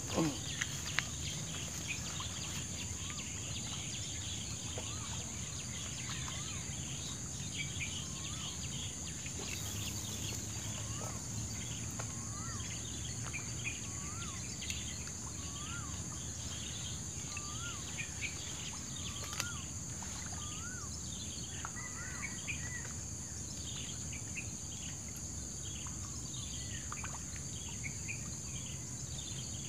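Outdoor ambience of insects and birds: a steady high-pitched insect drone, with birds chirping throughout and one repeating a short rising-and-falling note about once a second for a stretch in the middle. A brief downward-sliding sound right at the start is the loudest moment.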